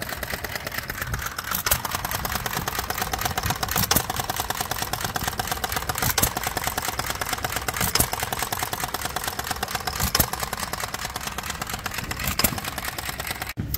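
Small 3/4 horsepower hopper-cooled antique gas engine running, with a sharp firing bang about every two seconds over a steady mechanical clatter.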